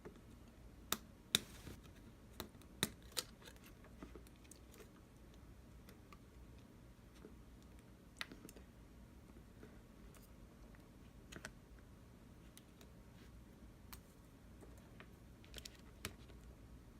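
Faint scattered clicks and light taps over quiet room tone. A cluster of sharper clicks comes in the first three seconds, then a few single ones spaced several seconds apart.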